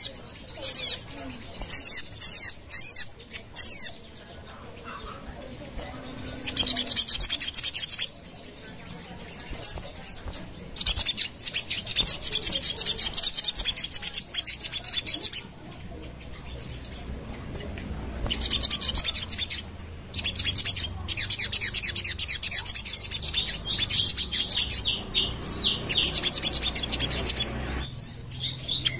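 A caged sogon singing: rapid, high-pitched chattering trills, a few short bursts at first, then long runs lasting several seconds with brief pauses between them.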